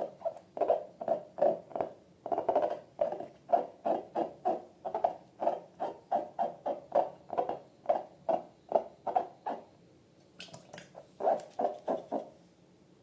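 Short squeaky squelches repeating about two to three times a second, from balloons and slime being squeezed and worked by hand. After a brief pause near the end comes a quicker burst of squelches with a hissy edge.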